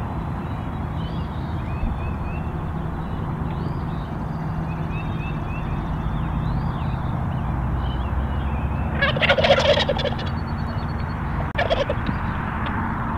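Wild turkey gobbler gobbling: a loud gobble about nine seconds in lasting about a second, then a second, shorter gobble a couple of seconds later, over faint songbird chirps.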